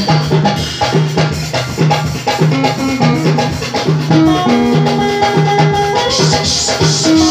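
Live band playing an instrumental passage: a hollow-body electric guitar over a drum kit and hand percussion keeping a steady quick beat, about two strong beats a second, with a melody of held notes.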